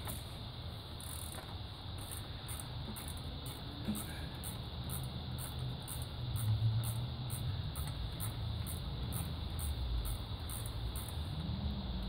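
Hand socket ratchet clicking in a steady rhythm, about two to three back-swings a second, as a long 10 mm cooling-fan bolt is worked out. A low rumble swells briefly about six seconds in.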